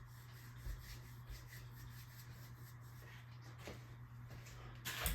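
Harbor Breeze Armory 42-inch ceiling fan running with a faint, steady low hum and light ticking. Near the end comes a louder burst of rubbing or handling noise.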